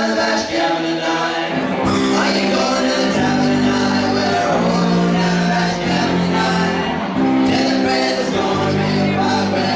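A live band playing a song, with singing over sustained chords and a bass line.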